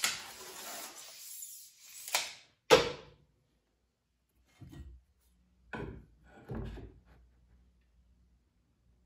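Steel tape measure rubbing along a particleboard panel, then its blade snapping back into the case with a sharp click, the loudest sound. A few short, lighter knocks and scrapes follow as a pencil marks the board and a metal square is set on it.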